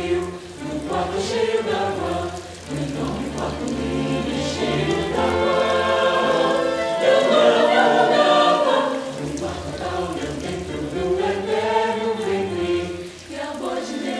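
Mixed choir singing in Portuguese with orchestral accompaniment, voices swelling loudest around the middle over a steady low instrumental bass.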